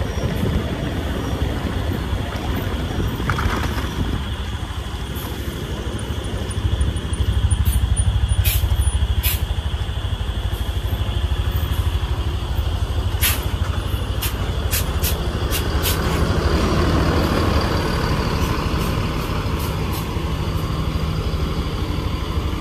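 Heavy diesel vehicle's engine running close by, swelling louder for a few seconds about a third of the way in, with several short sharp hisses or clicks in the middle stretch.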